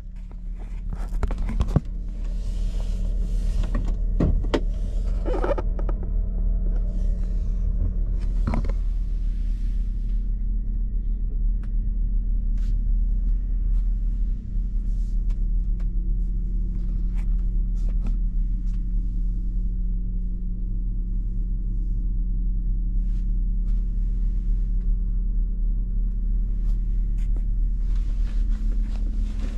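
Ford F350 Super Duty pickup's engine idling steadily, heard from inside the cab, settling in over the first couple of seconds. A few sharp clicks and knocks come in the first several seconds.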